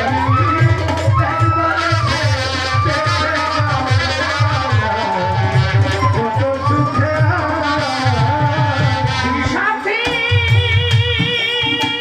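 Live Bengali folk music: a hand-played barrel drum keeps a fast, heavy beat under a melody whose pitch bends up and down. About ten seconds in, a long held note with a slight waver begins.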